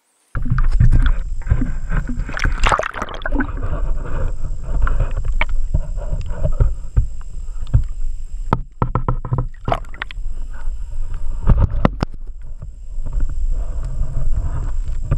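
Underwater sound from an action camera in its waterproof housing: water rushing and churning past it, with many knocks and rattles against the housing as a hooked pike shakes on the lure, over a faint steady high whine.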